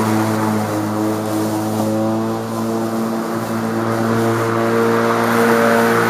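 Black & Decker CM1936 36-volt cordless electric lawn mower running while mowing grass: a steady motor and blade hum that dips slightly about halfway through.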